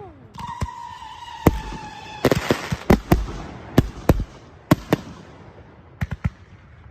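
Consumer fireworks going off: about a dozen sharp bangs at irregular intervals, with a whistling firework shrieking for about a second and a half near the start. The bangs thin out toward the end.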